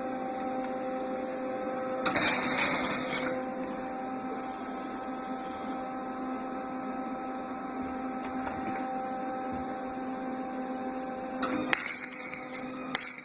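110-volt flux-core wire welder running, with the arc crackling and sputtering over a steady electrical hum. Louder bursts of sputter come about two seconds in and again near the end.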